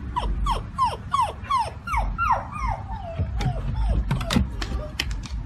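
Australian shepherd whining in a rapid run of short yelps, each sliding down in pitch, about three a second. A few sharp clicks come in the last couple of seconds.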